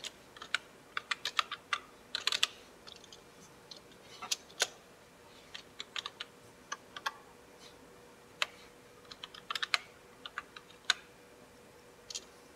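Keys on a computer keyboard being typed slowly, with single clicks at an uneven pace and short pauses between them.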